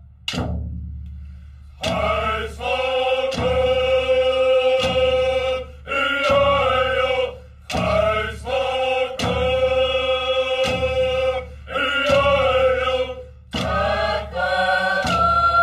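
Soundtrack music: chant-like sung phrases, each a second or two long with short breaks between, over a steady low accompaniment.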